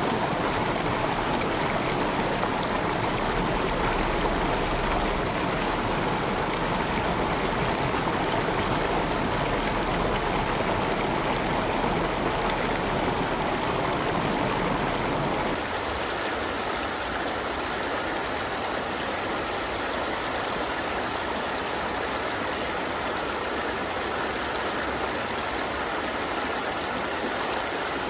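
River water flowing steadily in a continuous rushing babble. About halfway through it changes abruptly to a slightly quieter, lighter flow with less low rumble.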